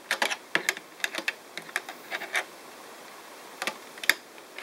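Plastic clicks and taps as the A-Power add-on bar is pushed and slid onto the front of a PS3 Slim's plastic case and its catch engages: a quick run of clicks in the first second, a few scattered ones, a short lull, then two more near the end.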